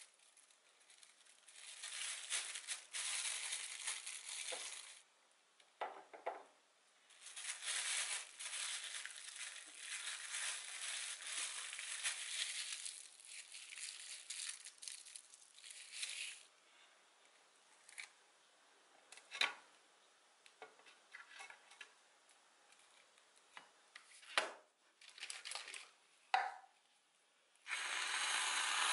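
Thin plastic bag crinkling in long stretches as it is filled with Nutella and squeezed into a piping bag, then a few scattered light taps and clicks. Near the end comes the steady hiss of whipped cream spraying from an aerosol can.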